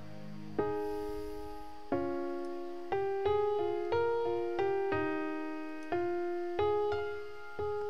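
Background music: slow piano or electric piano notes and chords, each struck and left to fade, a new one every second or so.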